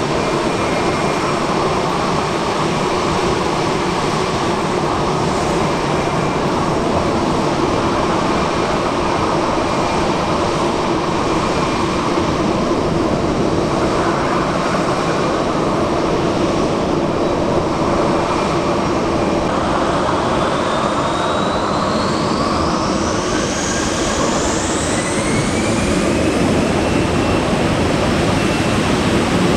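Airbus A320's twin jet engines running steadily, then a rising whine from about 20 seconds in as they spool up to takeoff power.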